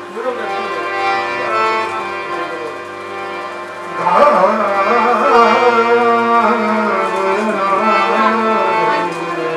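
Rajasthani Manganiyar folk music: a harmonium holds steady chords with a dholak hand drum. A man's voice comes in singing loudly about four seconds in.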